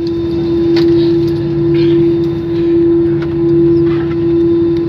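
Airbus A320 cabin noise on the ground just after landing: the engines give a steady droning tone over a lower rumble that swells and fades about once a second, with a few faint rattles.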